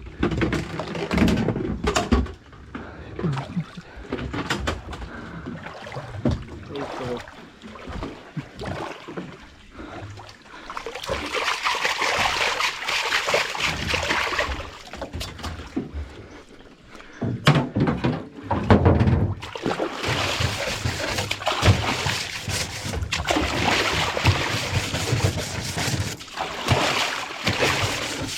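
Boat hull being washed: scattered knocks against the hull at first, then steady scrubbing and splashing water from about ten seconds in, with a cluster of louder knocks near the middle.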